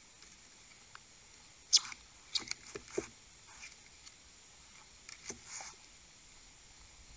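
Two striped skunks squabbling over food, giving short, sharp, noisy bursts of territorial sound. The loudest comes about two seconds in, a quick cluster follows just after, and more come around five seconds in.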